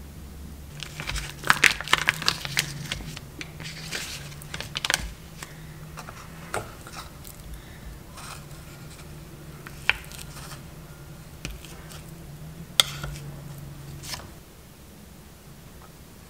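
Kitchen handling noises while measuring cookie ingredients: a knife scraping and tapping against a plastic measuring cup, paper rustling, and utensils knocking in a stainless steel mixing bowl. A quick flurry of clicks and scrapes comes in the first few seconds, then single sharp clicks every few seconds.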